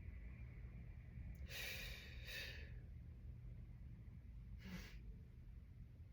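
A person breathing audibly: a long, airy breath in two parts about one and a half seconds in, and a shorter breath near five seconds, over a faint low hum.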